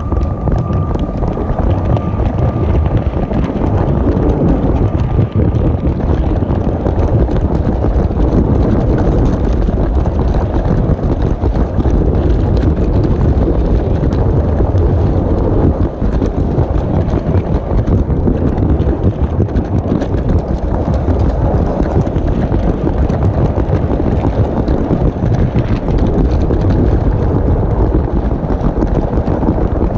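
LEGO train running along plastic LEGO track, heard from a camera riding on the train: a steady loud rumble and rattle of its wheels rolling over the rails. A faint high whine fades away over the first few seconds.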